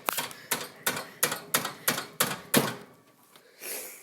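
A quick run of sharp taps, about three a second, that stops about two and a half seconds in, followed near the end by a brief soft rustle.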